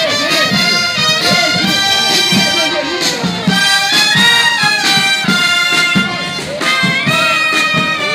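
Military band playing, with brass instruments carrying a melody of held notes.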